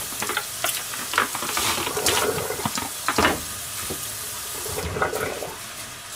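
Clicks, knocks and rustles of a bowl and food being handled on a stainless-steel counter, over a steady hiss that thins out near the end.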